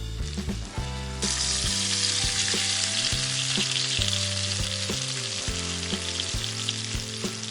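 Food frying in hot oil in a miniature pan: a steady sizzle that starts sharply about a second in, over soft background music.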